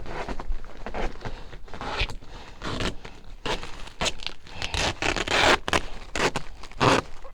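Duck-brand duct tape being pulled off the roll in several irregular ripping pulls, with crinkling and scraping in between.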